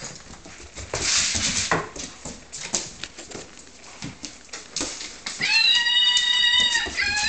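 Screaming monkey toy letting out one long, high, held electronic screech about five seconds in, with another starting right at the end. Before it come scattered clicks, knocks and scuffling as a Weimaraner puppy handles the toy.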